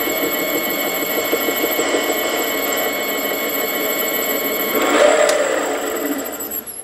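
Small benchtop metal lathe running, a steady high whine from its motor and gearing while it turns an aluminium part. It gets louder about five seconds in, with a single click, then winds down and stops at the end.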